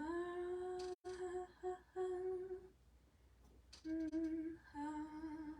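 A voice humming wordless notes: one long held note for about two and a half seconds, a short pause, then shorter notes stepping down in pitch.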